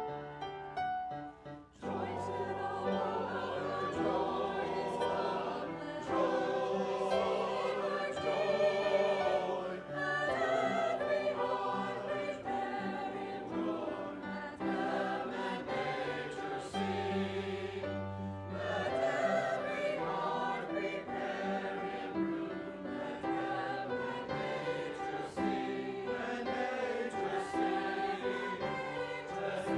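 A choir singing with keyboard accompaniment. The voices come in about two seconds in, after a short piano phrase.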